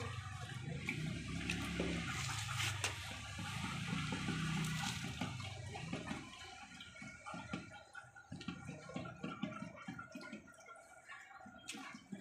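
A German shepherd lapping and slurping water from a plastic bucket. About halfway through, the steady slurping gives way to fainter, irregular clicks.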